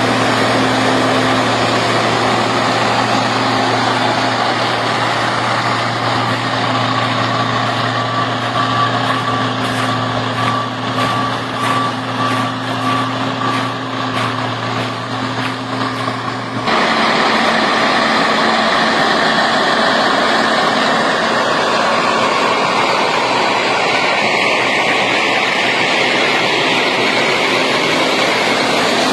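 Diesel engines of heavy road-building machinery running steadily, with a repeating high beep for several seconds in the middle. About two-thirds of the way through the sound cuts abruptly to a different machine's engine noise.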